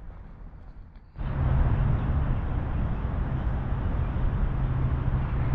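Steady road-traffic noise with a low engine hum, cutting in abruptly about a second in after a quieter low background.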